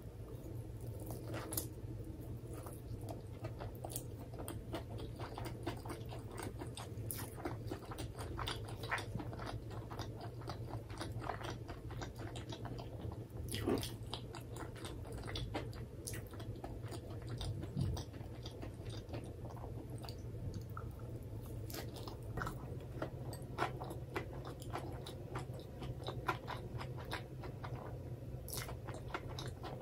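A person chewing a mouthful of karaage (Japanese fried chicken) topped with mentaiko mayonnaise, close to the microphone: a steady run of small wet clicks and crunches of mouth and food.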